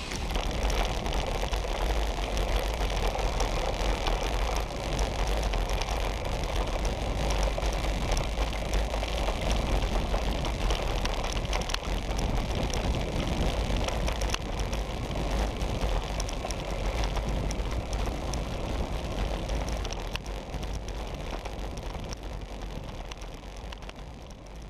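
Riding noise from a bike-mounted action camera on a road bicycle: wind on the microphone and tyres rolling on tarmac, with a run of light clicks and rattles. It is the 'funny noise' the rider blames on a broken spoke in the rear wheel. The sound fades out near the end.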